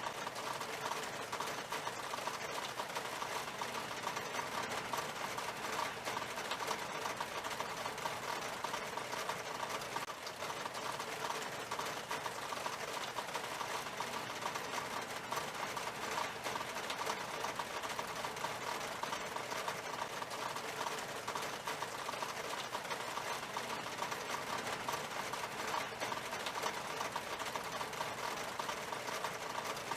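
Steady rain falling on window glass: a dense, even patter of many small drops tapping the pane, with no let-up.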